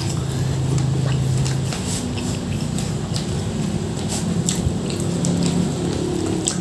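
Close-miked eating of rice and curry: wet chewing, squishy mouth sounds and many small lip and tongue smacks. A low hum runs under the first second or two.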